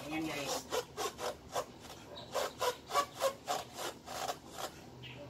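Hand tool work in a car's engine bay: a quick run of short rasping strokes, about four a second, stopping near the end.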